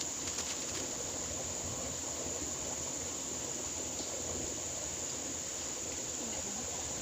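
Steady outdoor ambience: a continuous high-pitched insect drone over an even hiss of flowing water.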